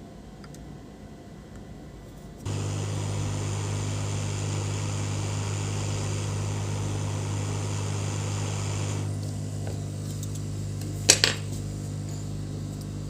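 Hot air rework station switched on suddenly about two and a half seconds in, running with a steady fan hum and a hiss of blowing air, used to solder a replacement MOSFET onto a laptop motherboard. The hiss drops away around nine seconds while the hum keeps going, and there is a sharp click about eleven seconds in.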